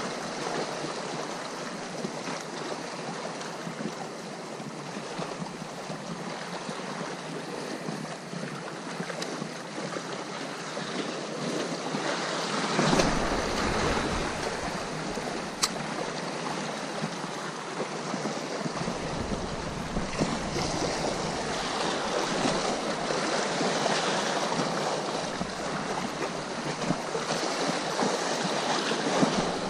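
Sea waves washing and surging, with wind rumbling on the microphone in gusts, heavier from about two-thirds of the way through. One sharp click comes about halfway.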